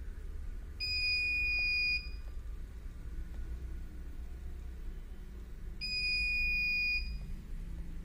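CP Plus DVR's alarm buzzer sounding an event alarm: two long, high-pitched beeps, each just over a second long, about five seconds apart.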